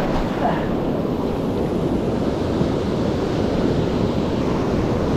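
Ocean surf washing and foaming in the shallows, a steady rush, with wind buffeting the microphone.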